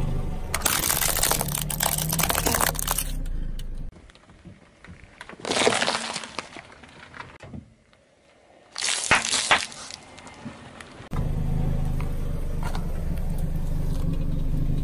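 Car tyre rolling over and crushing small objects on asphalt in several short clips: crackling and crunching of plastic and candy, with the car's engine running low underneath and a steady engine hum near the end.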